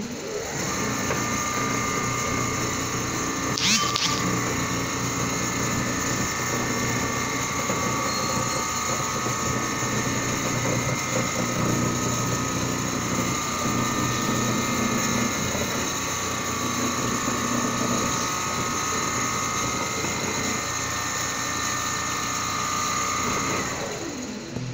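Richpeace large-format CNC sewing machine running, its needle drive and gantry servo motors giving a steady mechanical clatter under a high whine as the sewing head stitches across thick quilted fabric. There is a short high squeak about four seconds in, and the machine winds down near the end.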